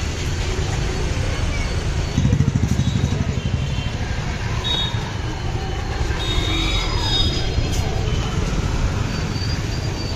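Road traffic heard from a moving vehicle: a steady low engine and road rumble, with an engine getting louder about two seconds in.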